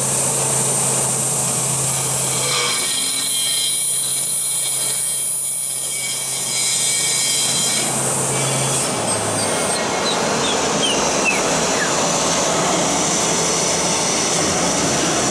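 Aluminium profile CNC machining center machining an aluminium extrusion, its spindle running with a steady hum and high whine. About nine seconds in the hum stops and a falling whine follows as the spindle winds down, under a steady rushing noise.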